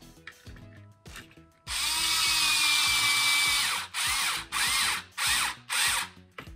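Cordless drill/driver running a 2.5 mm button-head screw into a plastic RC chassis post: a steady motor whine for about two seconds, then four short trigger bursts, the motor speeding up and slowing down each time as the screw is snugged down.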